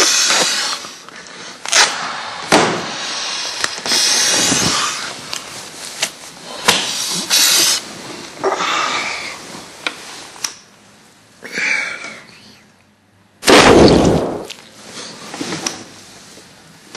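Snoring: a sleeper's noisy breaths and snorts, coming irregularly every second or two, the loudest and deepest about fourteen seconds in.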